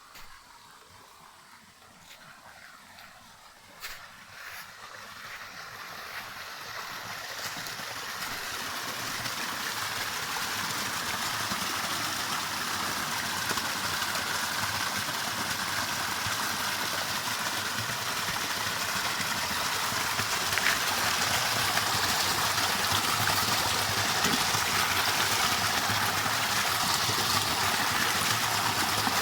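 Waterfall rushing, a steady wash of falling water that grows louder over the first twenty seconds or so and then holds steady. A couple of short knocks can be heard early, while it is still faint.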